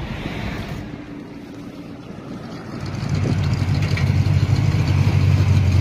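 Wind and road noise from a moving car. About three seconds in, the low, steady exhaust rumble of a classic pickup truck swells up loud as the car draws alongside it.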